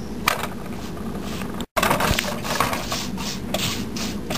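Light clinks and scrapes of a utensil on a pan as a roti cooking on it is turned over. A brief gap of silence comes about one and a half seconds in.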